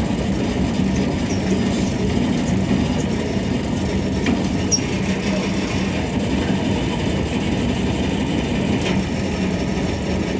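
A machine running steadily: a constant hum with one low, even tone.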